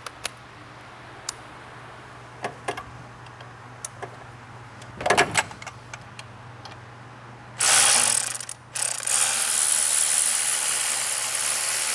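Cordless electric ratchet running in two long bursts, beginning about two-thirds of the way in, as it spins out a front engine mount bolt. Before that come scattered light clicks and a short cluster of knocks from handling tools and parts.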